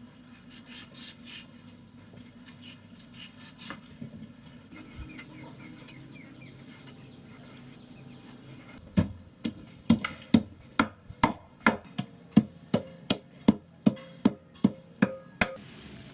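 Knife cutting pork and fat on a wooden chopping board: light scrapes and soft taps at first, then from about nine seconds in a steady run of sharp chops, two or three a second, as the blade chops the meat against the board.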